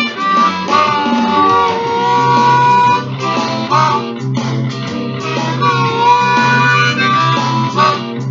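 Diatonic blues harmonica in C played cupped in both hands in a blues improvisation: held notes that bend in pitch, broken by a few short gaps.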